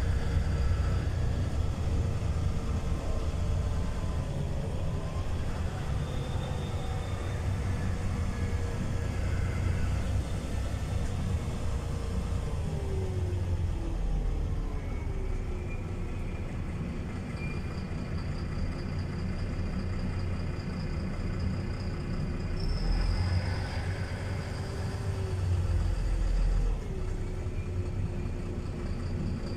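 Interior sound of a LiAZ 5292.22 city bus on the move: a steady low rumble of engine and road, with a whining tone that steps down in pitch about halfway through and rises again later.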